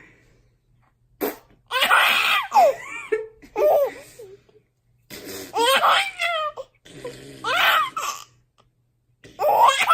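A baby laughing hard in several high-pitched bursts, separated by short pauses.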